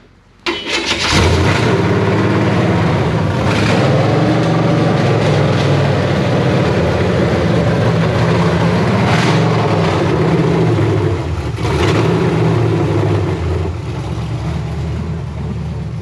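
Small-block Chevy V8 in a squarebody pickup, breathing through new Flowtech ceramic-coated shorty headers, starts up about half a second in and runs loud and steady, with a few brief surges. It eases slightly quieter near the end.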